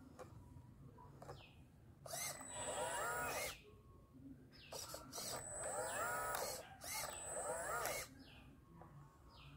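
Homemade RC excavator's drive motors whining in three bursts as the arm and bucket move through the sand, each starting and stopping abruptly, with the pitch rising and falling under load.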